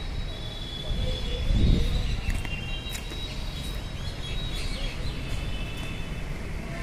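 Outdoor background noise: a steady low rumble that swells louder about a second and a half in, with short high bird chirps over it.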